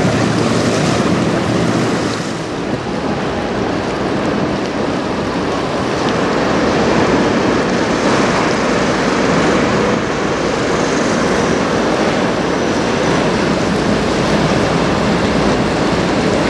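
Steady wind on the microphone over choppy river water washing and lapping, with a brief dip about two seconds in.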